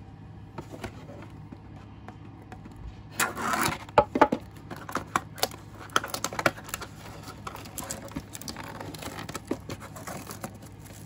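A cardboard trading-card box is torn open with a noisy rip about three seconds in. Then come crinkling and sharp clicks as the foil card packs inside are handled.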